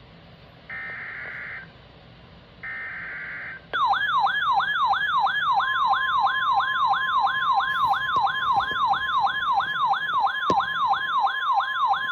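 Two short screeching data bursts of an EAS SAME header, then a loud siren-like alert tone sweeping up and down about three times a second. About a second and a half after the sweeping starts, the steady 1050 Hz NOAA Weather Radio warning alarm tone joins it, announcing a severe thunderstorm warning.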